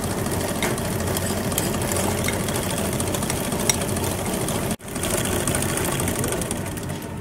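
Stand mixer motor running steadily as its flat beater whips a creamed butter, sugar and egg batter. The sound drops out for an instant about five seconds in.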